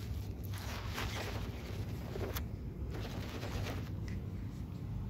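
A baby crawling on a quilt close to the microphone: soft rustling and scuffing, with a sharp tap about two and a half seconds in.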